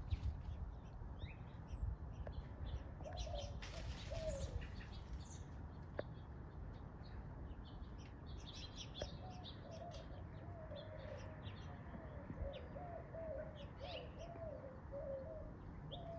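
A flock of small birds chirping, with many short, high chirps overlapping throughout. A lower wavering tone runs through the second half.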